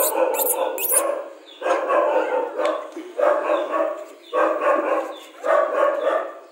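Rajapalayam puppies crying, a string of drawn-out pitched yelps, roughly one a second.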